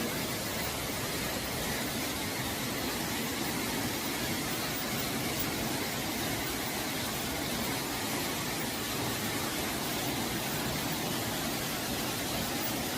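Steady rushing noise of a tall waterfall.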